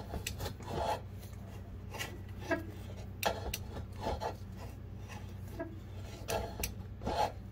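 Rubber ribbed water pump belt on a Mazda 2.5L engine scraping and rubbing as it is worked off the crankshaft pulley while the crankshaft is turned by hand with a wrench on the crank bolt. A series of short, irregular rasps.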